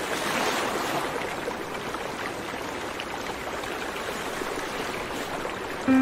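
Steady rushing noise with no tone in it, a little louder in the first second or so.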